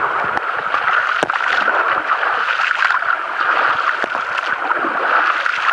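Shallow seawater splashing and sloshing as a person scoops it with her hands and wades through it, over a steady wash of water, with a few brief splashes standing out.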